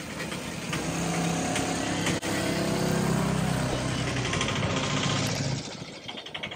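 A motor vehicle engine running close by, loudest through the middle and fading away near the end, over the hiss of sliced chips frying in a wok of hot oil.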